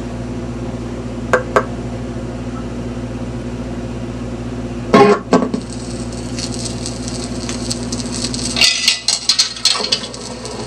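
Tube record player's amplifier humming steadily through its speaker, with small clicks as an LP is set on the turntable and two loud thumps about five seconds in. Surface hiss follows, then a run of crackles and pops near the end as the stylus sets down on the record.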